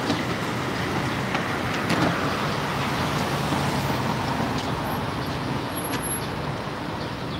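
Steady city road traffic noise: passing vehicles rumbling with no break.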